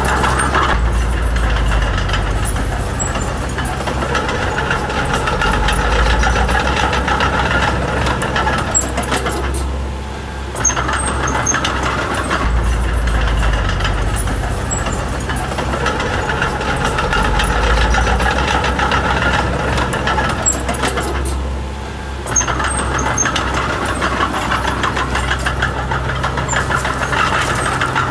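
Mini bulldozer's diesel engine running under load, its deep rumble swelling and easing every few seconds, with two brief let-offs about ten and twenty-two seconds in before it pulls again.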